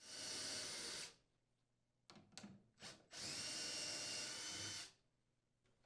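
Cordless drill with a 5/16-inch hex socket spinning out the screws that hold the unit in its wall sleeve. There are two runs, about a second and then a second and a half long, with a few short clicks between them.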